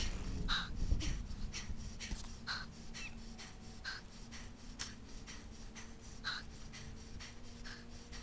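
A cyclist's hard, laboured breathing on a steep climb, one heavy breath every second or two, with a faint steady hum underneath.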